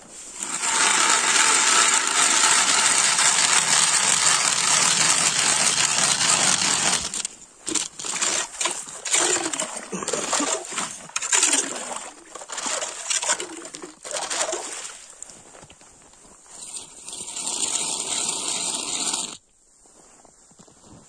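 Hand ice auger drilling through lake ice: a steady, loud grinding of the cutting blades for about seven seconds, then a run of irregular scraping strokes, and a further stretch of grinding noise that cuts off suddenly near the end.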